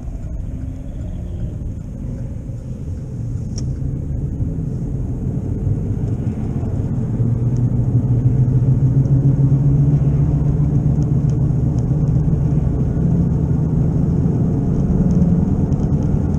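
Heard from inside the cabin of a 2011 Chevy Malibu as it speeds up: a low drone that rises slowly in pitch and gets louder over the first half, then holds. This is the noise of a bad left wheel bearing, which grows louder with road speed.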